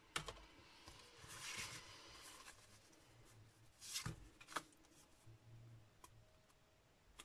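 Faint rustling and sliding of cardstock being handled on a craft mat, with two light taps about four seconds in.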